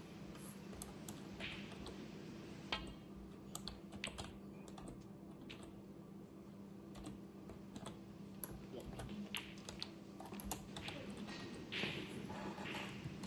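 Typing on a computer keyboard: bursts of quick, irregular keystrokes over a faint steady hum.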